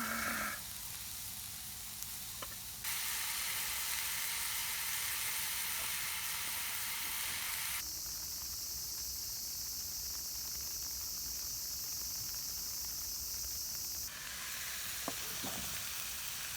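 Angus beef steak sizzling as it fries, a steady hiss whose brightness changes abruptly three times.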